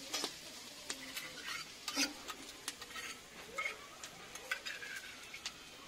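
A long metal spatula scraping and clinking against a steel wok as a spice mixture is stirred over the fire, with a steady low sizzle under it. The scrapes and clicks come irregularly, the loudest about two seconds in.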